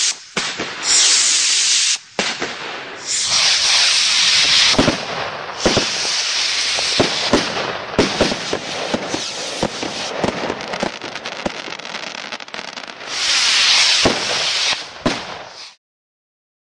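Weco Star Searcher firework rockets going off one after another: long hissing rushes as they fly, and sharp bangs and crackling as they burst, with the bangs coming thickest in the middle. The sound cuts off suddenly near the end.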